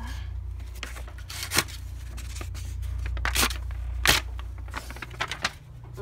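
A wooden-framed pin board being handled and brushed across by hand to clear it. It gives a string of short scrapes, rustles and knocks, loudest about four seconds in, with a low steady rumble underneath.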